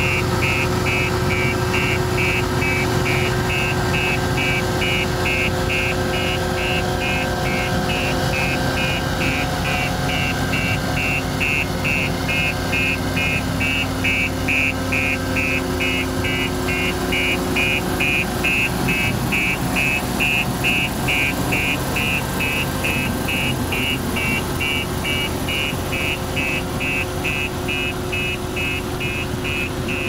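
10-ton JCB single-drum vibratory roller's diesel engine running steadily as it drives over and compacts loose sand, with a warning alarm beeping about twice a second.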